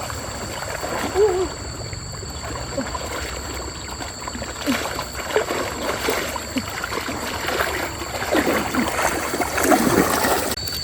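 Stream water splashing and gurgling, with many small irregular splashes and bubbling.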